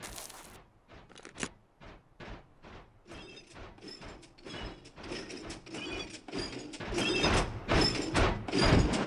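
Battle droid army marching in step: rhythmic metallic clanking footfalls, about three a second, growing steadily louder.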